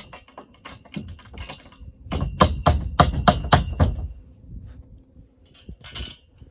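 Scattered metal clicks, then a run of sharp knocks about four a second for nearly two seconds in the middle, as a 5/16 bolt is worked through tight drilled holes in a steel high-tunnel bow pipe and its connector.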